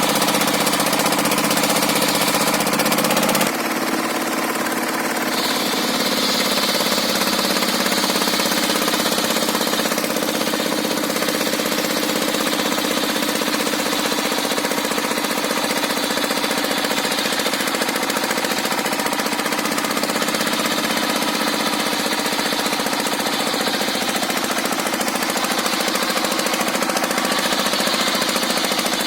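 Engine-driven circular sawmill running under load, the engine note dropping about 3.5 s in as the blade takes the cut, then a high whine from the blade that comes and goes as it works through the log. The machine is labouring on tough, fibrous timber with a blunt, unfiled blade.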